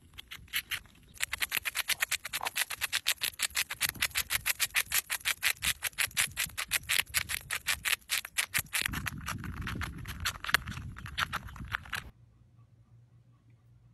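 Squirrel gnawing on a nut: fast, rhythmic scraping of teeth on the shell, about six strokes a second, cutting off suddenly near the end.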